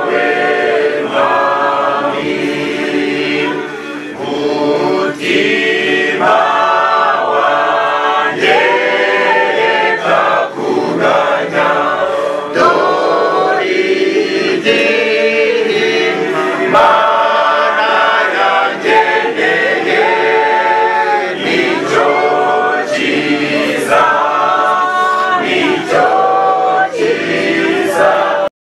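A choir singing unaccompanied, several voices together in sung phrases, with a brief break between phrases about four seconds in.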